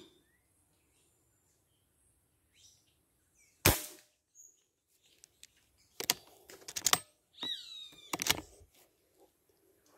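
A single shot from a Beeman 1336 air rifle a little under four seconds in, sharp and loud; the shot misses the dove. A series of clicks and knocks follows about six to seven seconds in and again near eight seconds, with a bird calling among them.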